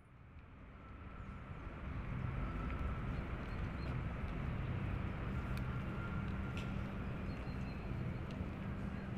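Outdoor ambience fading in over the first two seconds: a steady rumble of distant traffic, with a couple of faint clicks and a few faint high tones.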